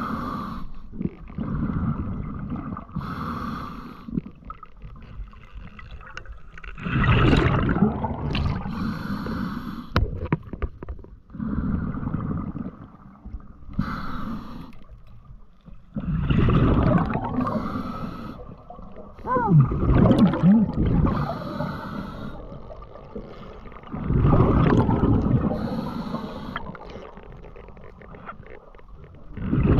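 A diver's breathing with gurgling water, coming in loud swells every four to five seconds.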